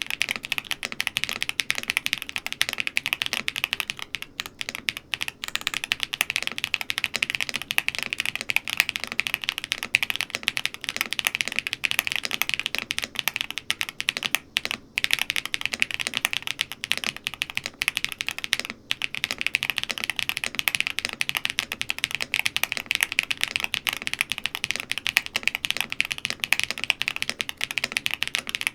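Rapid, continuous typing on a QK75N mechanical keyboard with BSUN Cliff tactile switches and all its foams fitted. The keystrokes run densely, with a few brief pauses.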